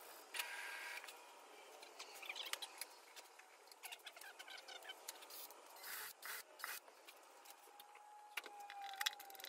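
Faint handling noise from small hand tools: scattered clicks, light metal rattles and short scrapes as drill bits are picked out of a metal case.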